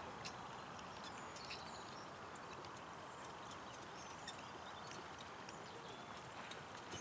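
Faint hoofbeats of a single harness horse pulling a four-wheeled carriage over grass, with a few light sharp clicks, over a steady background hiss.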